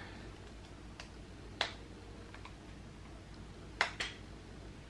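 Sharp plastic clicks and taps from a compact eyeshadow palette being handled and opened: a faint click about a second in, a sharper one soon after, and two quick clicks close together near the end.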